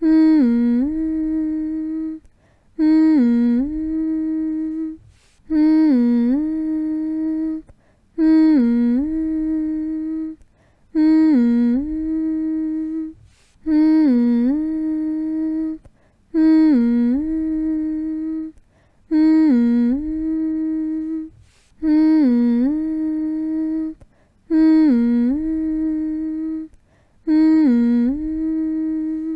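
A person humming the same phrase over and over, about every three seconds: each phrase dips briefly in pitch near its start, then holds one steady note, with a short pause for breath between phrases.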